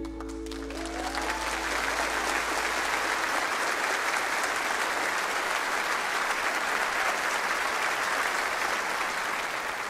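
Congregation applauding, swelling over the first two seconds as the last held chord of the music dies away.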